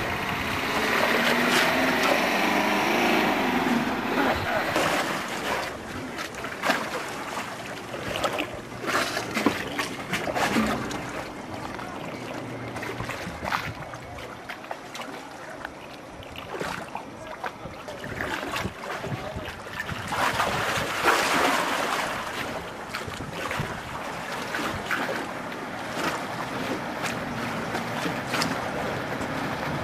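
Wind buffeting the microphone in gusts, with scattered knocks, over the running motor of a small patrol boat crossing the harbour.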